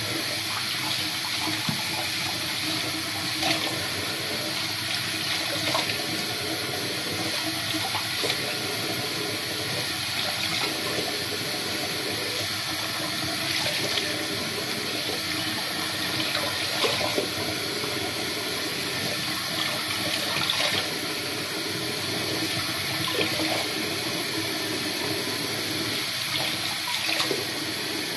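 Bathroom sink faucet running steadily while hands scoop and splash the water onto a face, with small splashes now and then: a cool-water rinse to wash off face cleanser.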